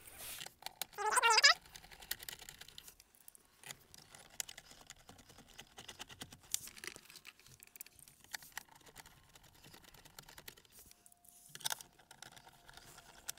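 Faint, scattered small clicks and ticks of a screwdriver and screws as the Sync 3 screen assembly is screwed into its mounting in the dash.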